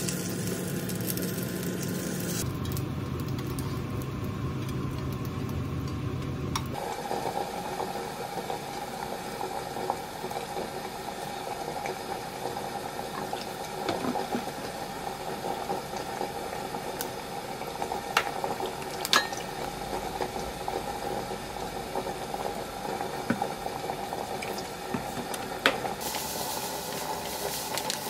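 Dumplings frying in an oiled pan for the first few seconds, then liquid seasonings poured and spooned into a glass mug, with several light clinks of a spoon against the glass.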